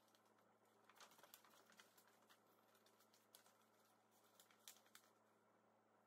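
Near silence with faint, scattered crinkles and light taps of stiff folded paper being handled, the flaps of a paper puzzle purse opened and closed by hand. The clearest come about a second in and again a little past the middle.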